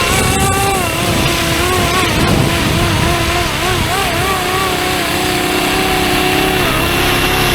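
Fly-Wing MH-60R SeaHawk 470-class electric RC helicopter running, with its motor whine and rotor noise. The whine wavers up and down in pitch a few times a second, then holds steadier after about four seconds.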